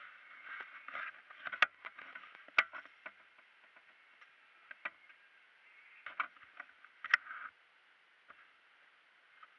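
Handling noise from an action camera: rubbing and scratching against clothing in bursts, broken by sharp knocks on the housing, the loudest about a second and a half in, at about two and a half seconds and about seven seconds in.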